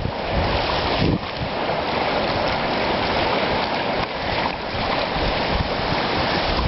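Strong wind over a river and the choppy, wind-driven waves it raises, heard as a steady rushing hiss. Wind buffets the microphone in the first second or so.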